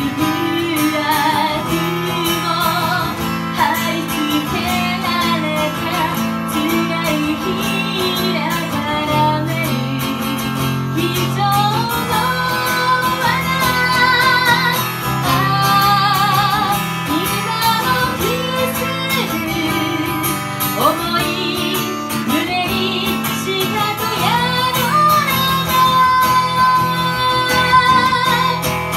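A woman singing into a microphone over an acoustic guitar. Her held notes waver with vibrato.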